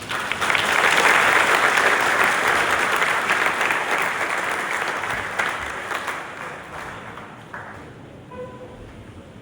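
A hall full of students clapping. It starts abruptly, is at full strength about a second in, and dies away gradually over the next several seconds.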